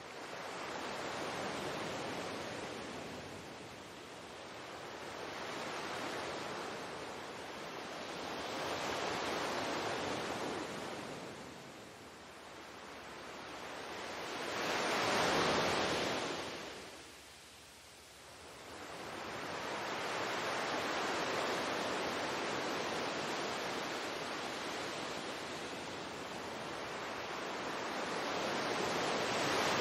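Ocean surf: waves washing in and drawing back, a rushing noise that swells and fades every few seconds. The biggest swell comes about halfway through, followed by a brief lull.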